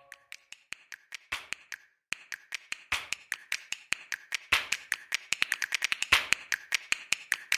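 A rapid, irregular series of sharp clicks or taps. They are sparse at first and grow denser from about three seconds in, to roughly eight a second.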